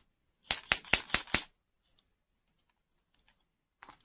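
Plastic ball-shaped lollipop toys in shiny wrappers tapped and knocked against each other by hand: a quick run of about six sharp clicks in a second, then a few faint ticks and one light tap near the end.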